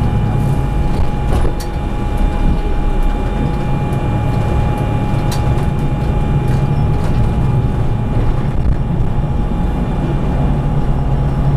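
Public city bus driving, heard from inside the cabin: steady engine and road rumble with a thin steady whine, and a few sharp clicks and rattles.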